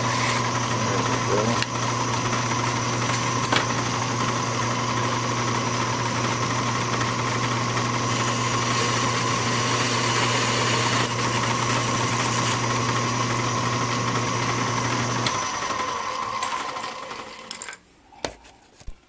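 Craftsman 109 bench lathe running steadily with a steady hum, its spindle turning a small collar during filing and a parting-off cut. About 15 s in it is switched off and winds down to a stop, followed by a few light clicks near the end.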